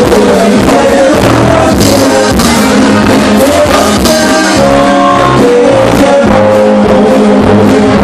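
Live band playing loud amplified music, with a singer over guitars, drums and percussion and a steady bass pulse.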